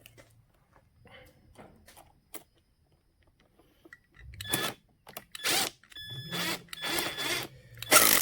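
Motorcycle battery terminal hardware being worked by hand: faint clicks at first, then from about halfway several loud metallic scrapes and rattles as the terminal bolt is driven into its nut, the loudest near the end.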